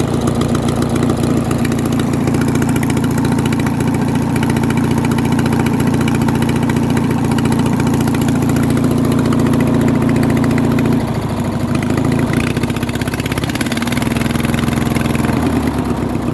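Briggs & Stratton opposed-twin engine of a White LT 1650 lawn tractor running steadily, then going uneven about eleven seconds in. It is not running quite right, which the owner puts down to a spark plug that needs replacing.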